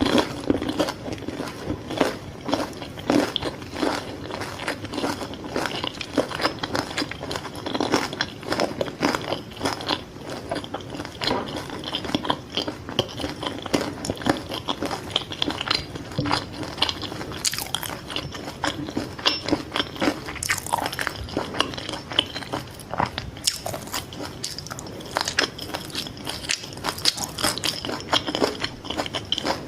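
Close-miked eating of fried fish balls: crunchy bites into the fried crust followed by wet chewing, in a dense, irregular stream of crackles and smacks.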